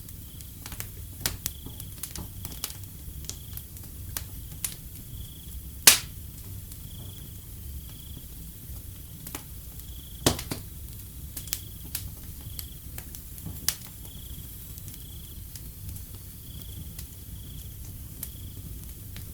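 Wood fire crackling with scattered sharp pops, the loudest about six and ten seconds in, over a low rumble. A cricket chirps steadily in the background at a regular pulse, a little faster than once a second.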